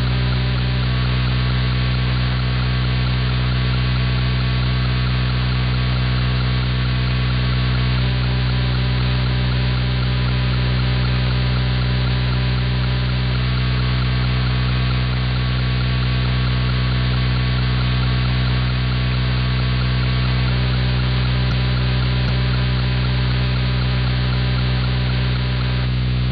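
Online SDR radio receiver in AM mode giving a steady electrical hum and buzz over static, with no station programme coming through. The noise stays level and unchanging throughout.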